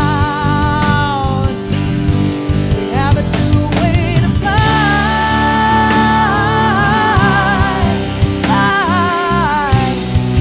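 Background music: a rock-pop song with a sung vocal holding long wavering notes over guitar and drums.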